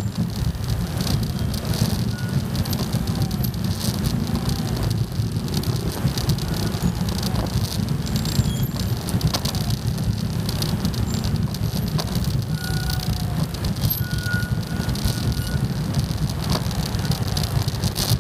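Motorcycle engines running in slow, creeping traffic, a steady low rumble.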